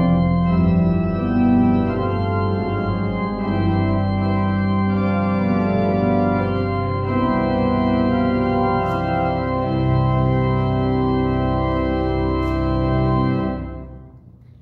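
Church organ playing a series of held chords, ending on a sustained final chord that is released and dies away about a second before the end.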